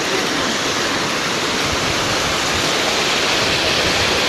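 Steady, loud rush of flowing water from a nearby river or falls.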